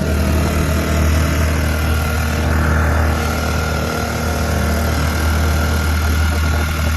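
Air-cooled 4 hp four-stroke outboard motor running steadily at full throttle.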